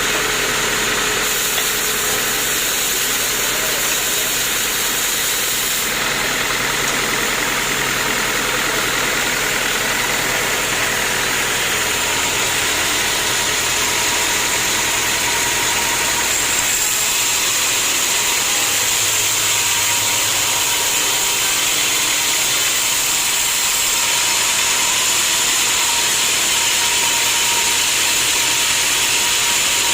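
Sawmill machinery running steadily with an even mechanical noise, changing character abruptly a few times.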